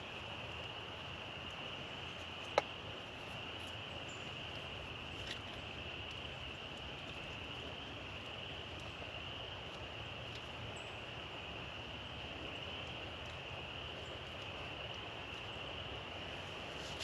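Steady, unbroken high-pitched insect chorus, crickets or similar, in the woods. A single sharp click about two and a half seconds in, with a fainter tick a few seconds later.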